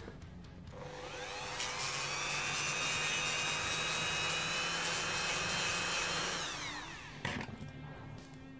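Handheld rotary tool with a cut-off disc spinning up to a steady high whine, running for about five seconds, then winding down. A sharp click comes just after it stops.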